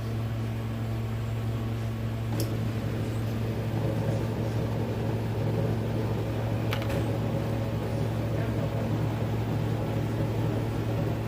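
A steady low machine hum, with two faint clicks a few seconds apart.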